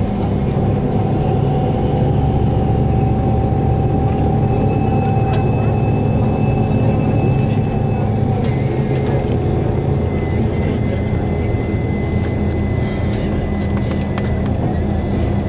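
A bus on the move: a steady low engine drone with road noise.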